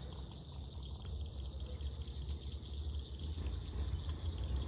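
Insects chirping steadily in a high, even band over a low rumble and a watery, trickling noise.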